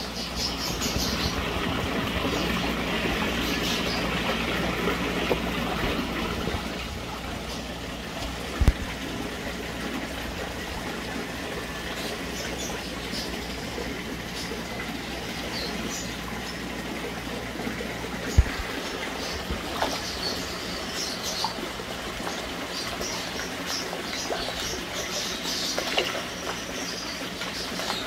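Water sloshing and trickling with small crackling pops, over a steady low hum, with two sharp knocks, one about nine seconds in and one about eighteen seconds in.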